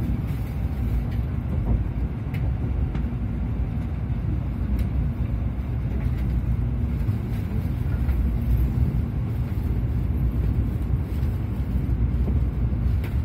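Steady low rumble of a train running, heard inside the passenger car, with a faint hum and a few light clicks.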